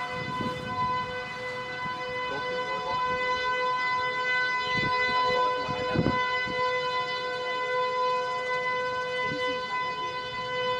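Outdoor tornado warning siren sounding a long steady tone, warning of the tornado on the ground. Irregular low rumbles come and go under it, the strongest about six seconds in.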